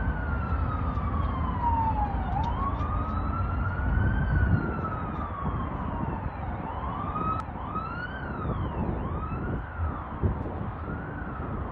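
Emergency vehicle siren wailing in slow rising and falling sweeps, which switch to quicker cycles about halfway through, over a low rumble.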